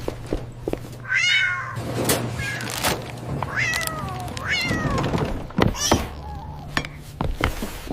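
Cat meowing in a string of about six calls, several falling in pitch, with short knocks and clicks in between over a steady low hum.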